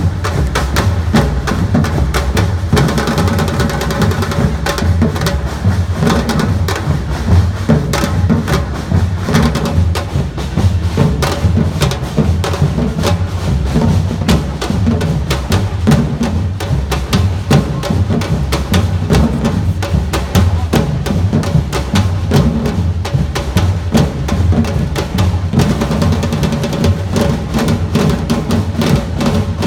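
Samba-reggae drum band playing a loud, steady groove: deep bass drums (surdos) pound out a repeating pattern under rapid, sharp snare and high drum strokes.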